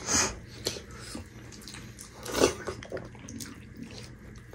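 Mouth-close eating sounds: wet chewing, lip smacks and squelches as dhido is eaten by hand, in a few irregular short smacks and clicks, the loudest about two and a half seconds in.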